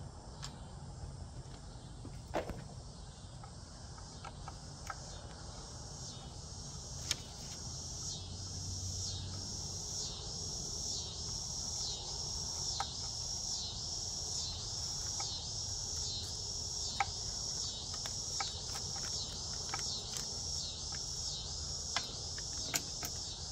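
Outdoor insect chorus, a high rhythmic pulsing about one and a half pulses a second that grows louder several seconds in. Occasional light clicks of a small hand tool on the engine's screws come through.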